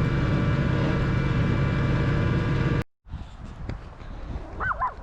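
Vehicle engine running steadily, heard from inside the vehicle. It cuts off abruptly a little under three seconds in, giving way to quieter outdoor sound with a short chirp near the end.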